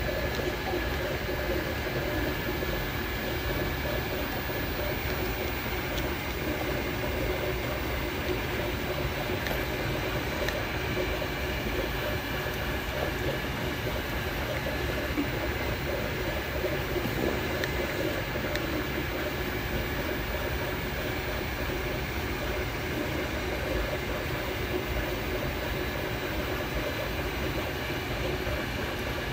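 MakerBot Replicator desktop 3D printer running steadily mid-print.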